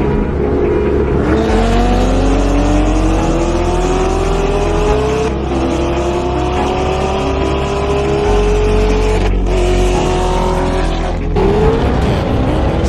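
Car engine accelerating hard and pulling up through the gears, its pitch climbing steadily and dropping at a shift about five, nine and eleven seconds in. Under it a trap beat with deep bass notes.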